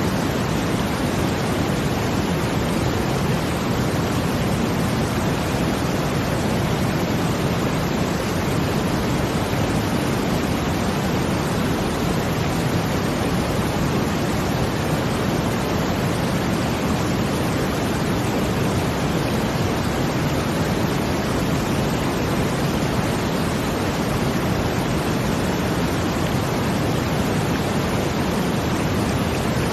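Steady brown noise blended with a water sound: an even, deep rushing hiss with no swells or breaks.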